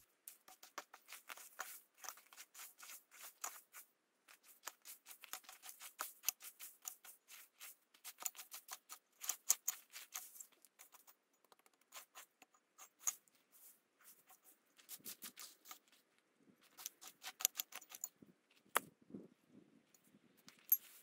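A small digging tool scraping and chopping into dry soil and pine needles in quick repeated strokes, several a second, in spells of a few seconds with short pauses. One sharper click near the end.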